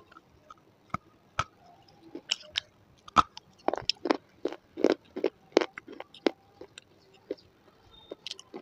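Close-miked crunching and chewing of a hard white slate pencil: sharp, dry crunches as the chunks are bitten and ground between the teeth. They come a few a second, thickest in the middle, and thin out toward the end.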